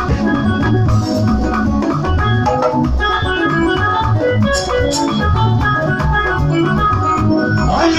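Band music in an instrumental break with no singing: an organ-sounding electronic keyboard plays short held notes over a pulsing bass line.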